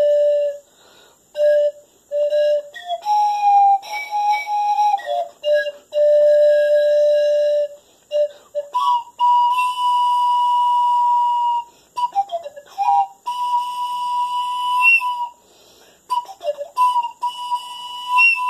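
Pan flute played in long held notes with short breaths between them, a slow warm-up; the notes sit low at first, then step up to a higher note about halfway through, with brief slides down and back.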